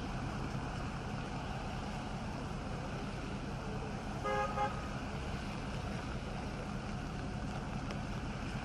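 A vehicle horn gives two quick toots about four seconds in, over a steady rumble of engine and outdoor noise.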